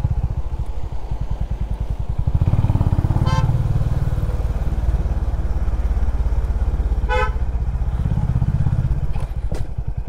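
Honda CB350RS's single-cylinder engine running steadily under way, heard from the rider's seat, a little louder from about two and a half seconds in. Two short horn toots, about three seconds in and about seven seconds in.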